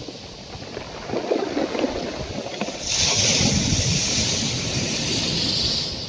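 Sea waves surging and washing in, with wind on the microphone. A louder hissing wash sets in about three seconds in and eases off near the end.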